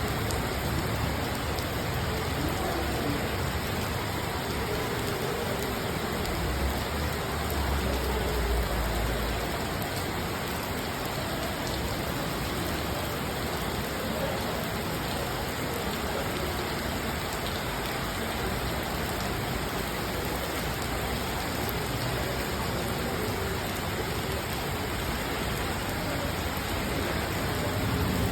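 Steady rain falling and pattering on surfaces, an even hiss with no change in strength.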